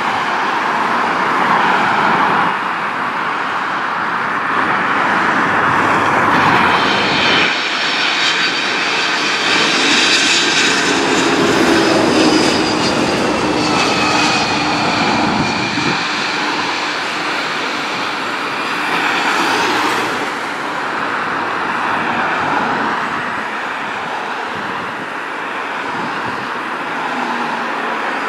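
Twin-engine jet freighter passing low overhead on final approach, its engine whine falling in pitch as it goes over, above a steady wash of road traffic.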